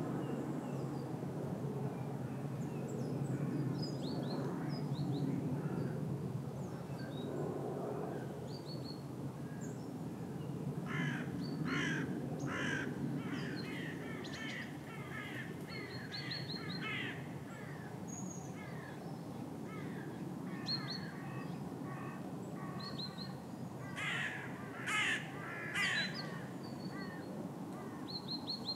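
Crows cawing in bouts, with three loud harsh caws near the end, while small birds chirp faintly and high over a steady low background hum.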